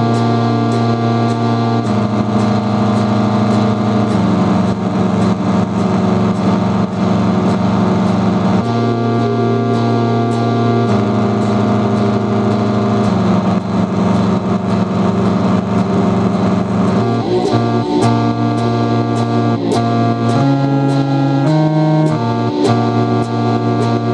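Live band music: an electric guitar and a small electronic keyboard play held chords that change every couple of seconds, over a steady beat of regular hits.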